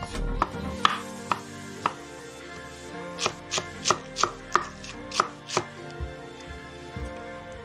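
Kitchen knife chopping on a wooden cutting board: slower cuts through boiled meat, then a quicker run of sharp knocks, about three a second, as green onions are chopped.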